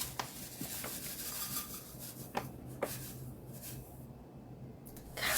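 A few light clicks and knocks with soft rubbing, as of dishes or utensils being handled, over a faint steady low hum.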